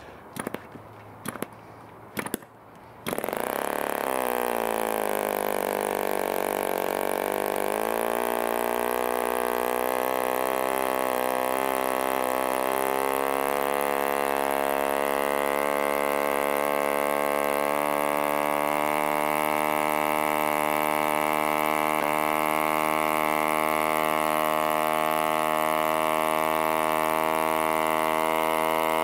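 1947 HP Series I 3.5 cc spark-ignition model aero engine turning a 10x5 wooden propeller: a few sharp clicks as the prop is flicked, then it starts about three seconds in. It runs with its pitch first sagging, then climbing for several seconds and settling into a steady high-pitched run.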